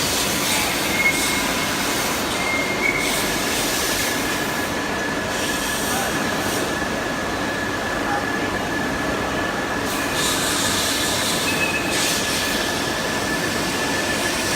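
CNC press brake running: a steady machine noise with a thin high whine that comes in about three seconds in and holds, plus a few short higher squeals.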